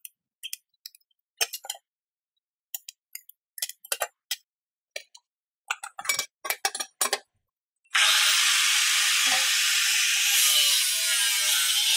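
Scattered light metallic clinks and knocks of parts being handled, then about eight seconds in a power tool starts up and runs loud and steady, working on metal.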